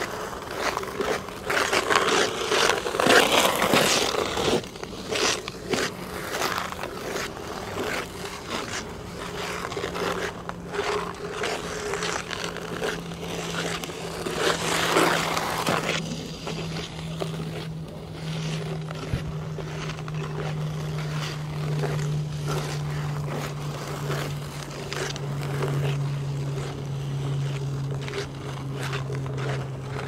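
Ice skate blades scraping and gliding over hard natural black ice, heard close to the ice, swelling loudly twice as skaters pass, near the start and again about halfway through. A low steady hum comes in about a third of the way through and slowly drops in pitch.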